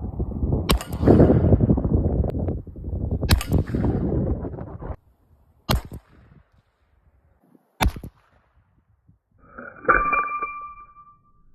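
Revolver shots: four sharp cracks a couple of seconds apart, the first two over a dense noisy wash that cuts off suddenly. Near the end a metallic clang rings on for about a second.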